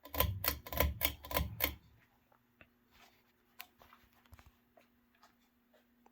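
A quick run of clattering clicks and knocks, then a Davenport Classic ceiling fan's stamped steel motor starting up with a steady low hum and faint, scattered ticks.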